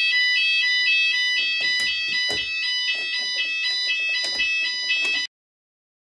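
Fire alarm sounders of a Notifier ID2002 system sounding in full alarm, set off by a manual call point. A steady high tone runs under rapidly alternating high tones, with a few irregular knocks, and the sound cuts off suddenly about five seconds in.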